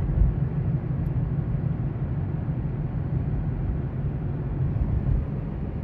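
Steady road and engine noise heard inside the cabin of a moving car: an even low rumble with a light hiss over it.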